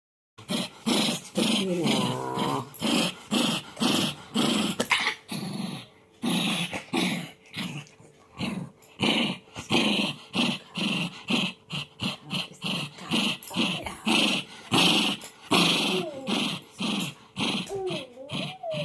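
A dog growling in rapid repeated bursts, about two or three a second, with a short whine about two seconds in and again near the end.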